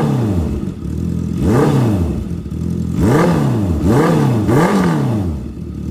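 Honda CB650R inline-four running through a DRIFT XAUST aftermarket full exhaust system, blipped from idle in short throttle blips. Each blip rises and falls in pitch and drops back to idle; there is one at the start, one about a second and a half in, and then three in quick succession.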